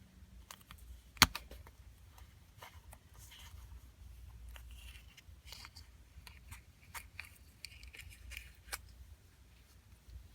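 Gacha toy packaging being opened by hand: a loud sharp click about a second in, then scattered small clicks and crinkling plastic.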